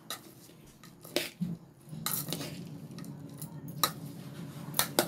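Metal spoon stirring dry puffed rice mixture in a metal pot, with scattered sharp clinks of the spoon against the pot, the loudest near the end, over a faint low steady hum.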